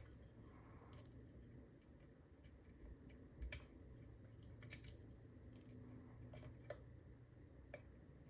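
Faint, scattered metallic clicks and ticks of a lock pick working the pin tumblers of a cruciform (cross-key) padlock under tension, a few sharp clicks spaced a second or so apart.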